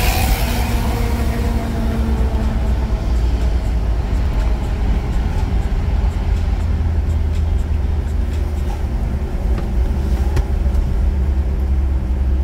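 Steady low rumble of a car driving at highway speed, engine and tyre-on-road noise. A louder rushing hiss fades away in about the first half-second, as the car draws alongside a truck.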